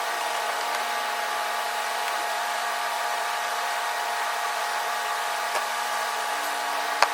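A steady motor-like hum with several fixed tones, unchanging throughout, and a single sharp click near the end.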